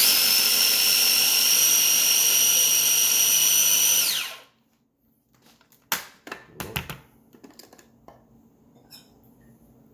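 Small electric food chopper's motor running for about four seconds with a steady high whine, grinding dried and fresh red chilies with shallots into a paste, then spinning down with a falling pitch as it is switched off. A few plastic clicks and knocks follow as the chopper's lid is lifted off.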